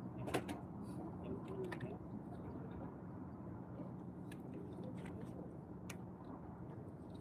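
Scattered sharp clicks and taps from fishing tackle being handled, the loudest just at the start and a few more spread through, over a steady low hum.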